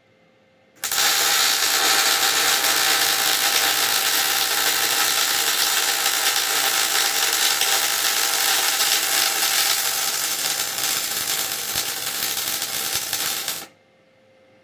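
Electric welding arc crackling steadily in one continuous bead of about thirteen seconds, starting abruptly about a second in and cutting off suddenly near the end.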